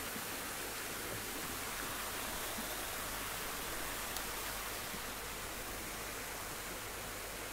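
A steady, even hiss with no speech or music, and one faint tick about four seconds in.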